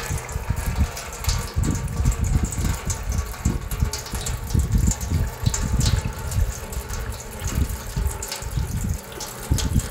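Old engine coolant gushing and splashing from a disconnected radiator hose into a metal drain pan, as a scooter's cooling system is drained for a coolant change.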